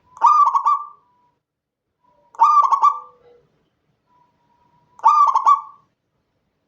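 Zebra dove cooing: three loud phrases about two and a half seconds apart, each a quick rolling run of coo notes lasting under a second, with a faint soft note leading into some of them.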